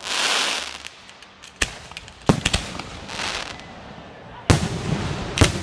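Fireworks going off: several sharp bangs of bursting shells, with two stretches of hissing crackle, one at the start and one about three seconds in.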